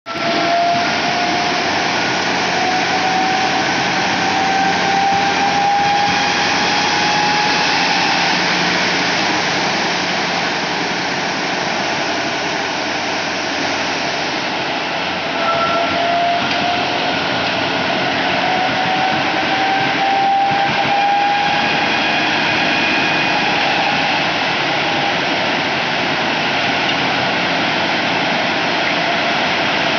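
Sugar mill cane-crushing machinery running steadily as cut sugarcane is fed in on the cane carrier: a loud, even mechanical din. A faint whine in it slowly rises in pitch over several seconds, twice.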